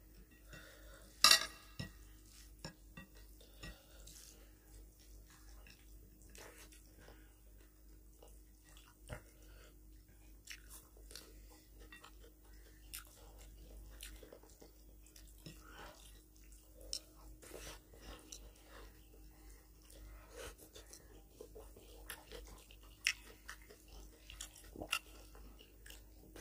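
Close-up eating sounds of people eating rice and mutton curry with their hands: chewing, soft crunching and the squelch of rice being mixed by hand, with small scattered clicks of fingers and food against plates. There is one louder clack a little over a second in.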